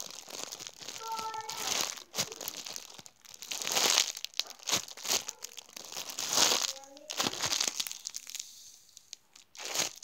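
Clear plastic bag crinkling and rustling as a squishy toy sealed inside it is handled and worked open, in uneven bursts that are loudest about four and six and a half seconds in, easing off near the end.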